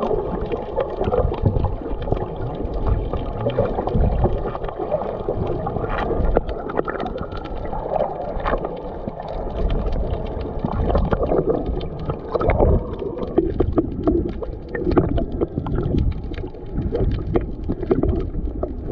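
Water heard from below the surface: muffled sloshing and gurgling around swimmers, dotted with many small sharp clicks and crackles.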